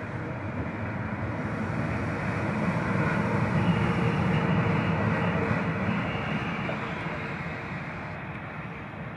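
Freight train passing by, a steady rushing rumble that swells to its loudest about four seconds in and then fades away.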